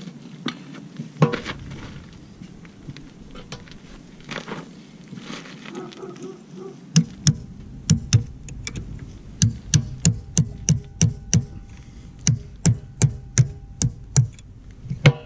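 Sharp metal-on-metal hammer blows, about three a second in short bursts from about halfway in, driving out a pivot pin on a mini excavator's hydraulic ram. Before them, only light scattered clanks and handling noise.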